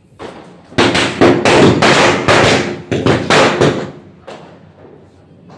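Firecrackers going off in a rapid, dense crackling string lasting about three seconds, starting about a second in.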